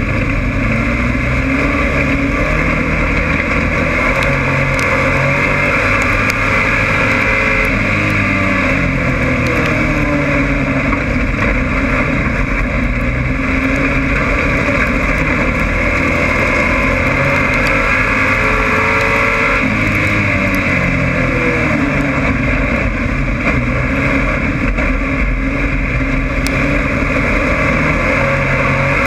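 Dirt-track race car's engine heard from inside the car at racing speed, running loud and rising and falling in pitch every few seconds as the throttle is opened and lifted, over steady wind and road noise.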